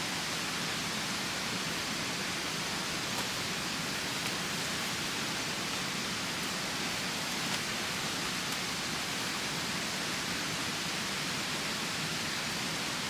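Steady, unbroken rushing of water, an even hiss with no separate drops or splashes standing out.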